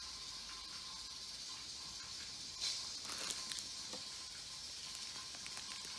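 A steady faint hiss, with a short rustle of plastic sheeting about two and a half seconds in and a few faint crinkles after it, as a cat steps about on the plastic lining of a cardboard box.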